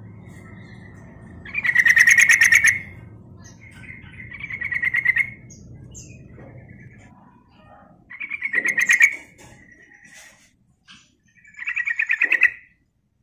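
Yellow-vented bulbul (trucukan) chattering in four loud bursts of rapid repeated notes, each about a second long, with softer chatter between them.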